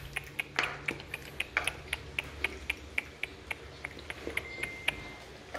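Belgian Malinois puppy eating kibble from a bowl: a run of irregular sharp crunching clicks, about four or five a second.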